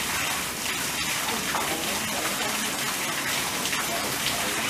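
Steady hiss of falling water with many small patters, even throughout.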